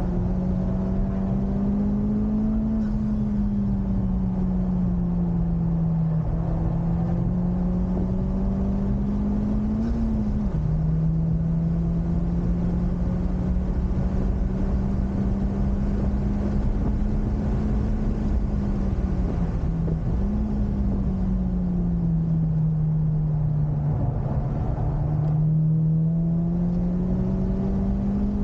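Honda Civic Type R FK8's turbocharged four-cylinder engine under load at track pace, its note rising steadily and dropping sharply at gear changes, over a steady rushing road and tyre noise.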